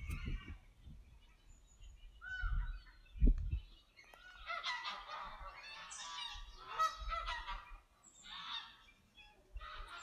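Canada geese honking, several calling over one another for about three seconds from halfway in, then shorter bursts of honks. A low thump about three seconds in is the loudest sound.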